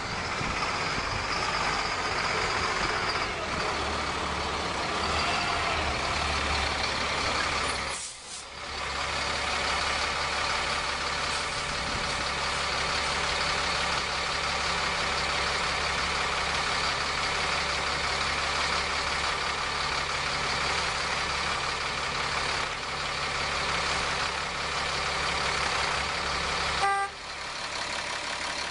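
The Caterpillar diesel engine of a 2001 Freightliner FL80 medium-duty truck running steadily as the truck drives at low speed. It drops out briefly about a third of the way through, and near the end it is heard idling close up.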